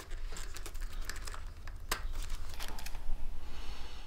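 Plastic wiring-harness plugs being unclipped by hand, with small clicks and rustling of the wires and rubber shroud. One sharper click comes about two seconds in.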